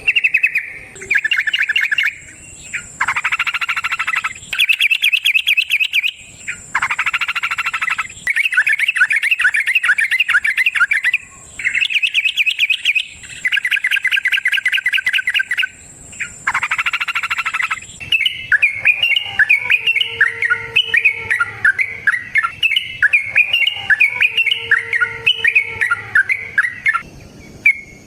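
Yellow-vented bulbul (trucukan) singing: a series of loud bubbling, warbling phrases each a second or two long. About two-thirds through they run together into one continuous, rapid chattering song, the long 'ropel' run.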